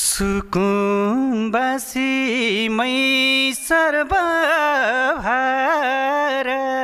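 A man singing a Nepali folk song unaccompanied, in long drawn-out wavering notes with quick ornaments between them.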